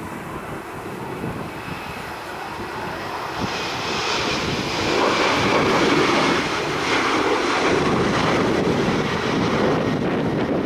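Airliner engines passing close, a steady noisy rush that grows clearly louder about four seconds in and stays loud.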